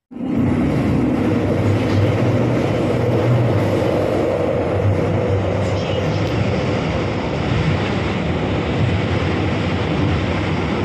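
Steady running noise inside a moving commuter train car: a loud, even rumble and rush of the train on the rails.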